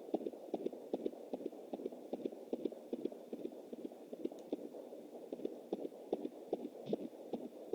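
Fetal heartbeat picked up by a handheld fetal Doppler through the mother's belly: a fast, galloping whoosh-whoosh pulse of about two to three beats a second, over a steady Doppler hiss.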